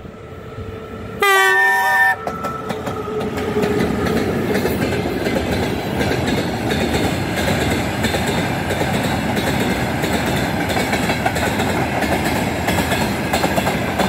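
Electric freight locomotive's horn gives one short, loud blast about a second in, sounded as a warning to people beside the track. Then the rumble and wheel clatter of the long train of tank cars rolling past close by builds up and holds steady.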